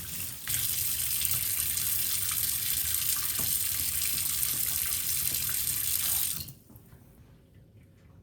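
Water tap running into a sink, turned on about half a second in and shut off about six and a half seconds in, followed by faint drips.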